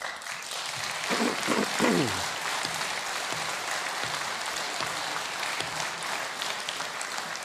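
Audience applauding, starting suddenly and keeping on steadily; a single voice from the crowd calls out briefly about a second in.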